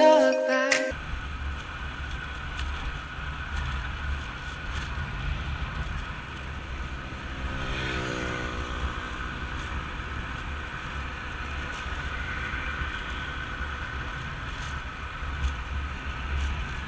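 Steady low rumble of a motor vehicle running, after music that ends about a second in.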